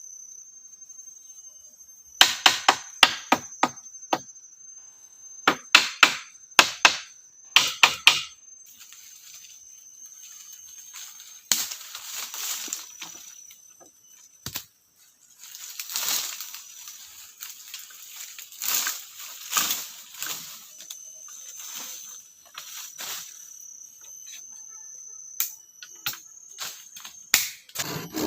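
Sharp blows of a tool striking wood, in three quick runs of about four to six strikes each, followed by rustling and scraping of branches and leaves. A high insect drone runs underneath, and rhythmic sawing on wood starts near the end.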